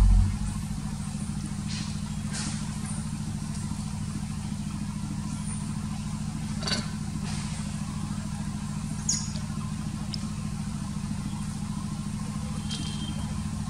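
Steady low motor hum, like an engine idling, with a few brief clicks and short high chirps over it.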